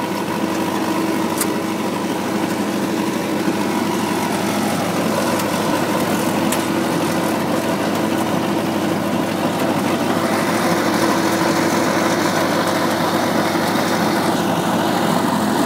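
Tractor engine idling steadily, a constant hum with a few held tones, growing a little louder about ten seconds in.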